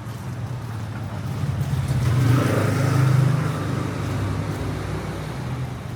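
A motor vehicle's engine running, swelling to its loudest about three seconds in and then easing off.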